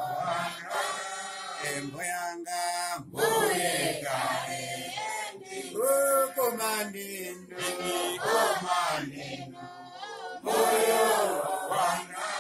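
Men singing a song together in sung phrases with short breaks between them.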